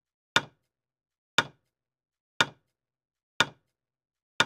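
Quiz countdown timer sound effect: a sharp clock tick once a second, five ticks counting down to the answer.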